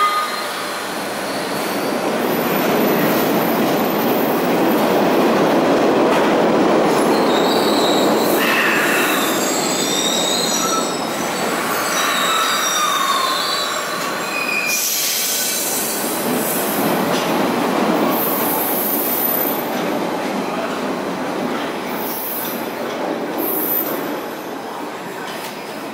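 MBTA Orange Line subway train, 01200-series cars, pulling out of an underground station and running past. Its wheels rumble on the rails, with short high wheel squeals in the middle, and the noise slowly fades near the end as it leaves down the tunnel.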